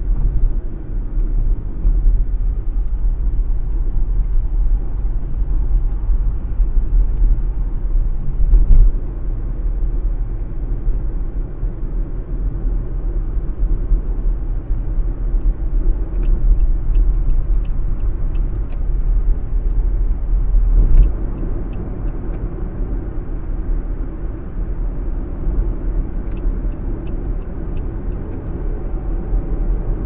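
Low road and engine rumble inside a moving car's cabin, with a louder bump about nine seconds in. Two short runs of faint quick ticking come later.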